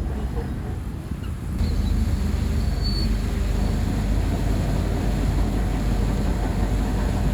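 Bulldozer's diesel engine running, a steady low rumble that gets louder about a second and a half in.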